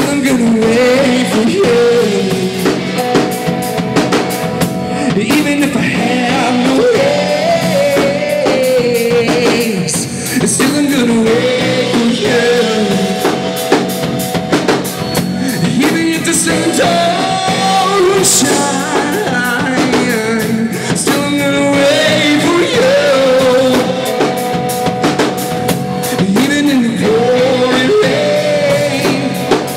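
Rock band playing live: a man singing over a Fender electric guitar and a drum kit.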